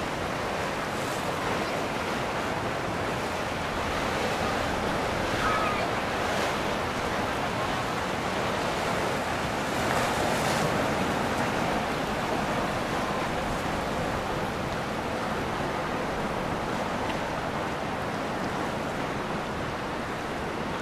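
Steady rushing of wind and moving water, swelling slightly a couple of times, with no clear engine tone.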